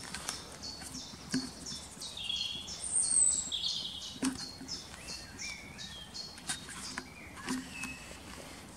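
Woodland songbirds singing: a long series of short repeated high notes, two or three a second, with a few lower chirps and a brief falling whistle among them, over a few faint clicks.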